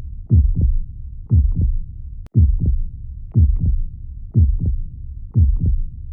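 Heartbeat, a steady, even double beat (lub-dub) about once a second, roughly 60 beats a minute.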